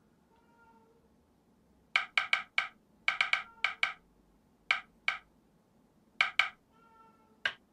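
Sharp, wooden-sounding clicks in irregular clusters of two to six, spread over several seconds, with a faint soft tone about half a second in and again near the end.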